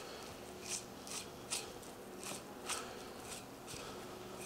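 Knife slicing the chain muscle away from a pork loin: a run of faint, short scraping strokes, one every half second or so.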